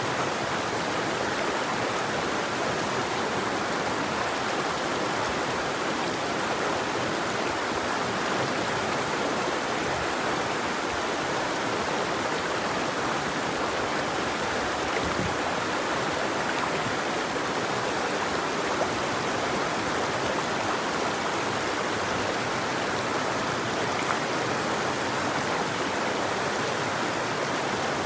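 River water flowing and rushing steadily, an even wash of noise with no birdsong.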